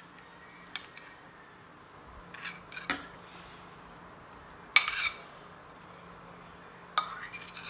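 Metal spoon clinking and scraping against plates as food is scooped from one plate onto another: scattered sharp clinks, the loudest a short ringing cluster a little under five seconds in and another near the end.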